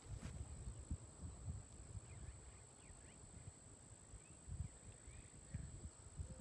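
Wind buffeting the microphone in an uneven low rumble, with a few faint high chirps about two seconds in and again near five seconds.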